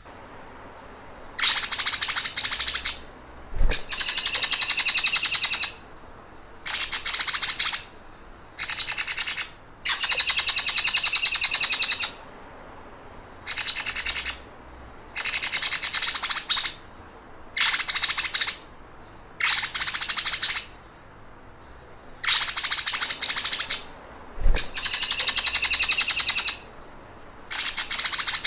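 A songbird giving rapid, buzzy, machine-like trills that sound like a sewing machine: about a dozen bursts of one to two seconds each, with short pauses between them.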